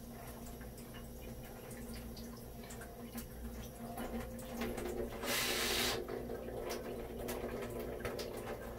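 Tap water running at a sink as fishing line is rinsed of salt, with a louder rush of water for about a second, about five seconds in. A steady low hum sits underneath.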